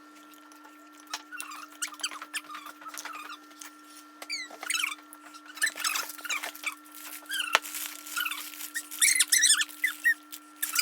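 Close-up mouth sounds of eating noodles: many short, high, squeaky slurps and wet lip-smacking clicks, coming in irregular clusters, some sliding down in pitch.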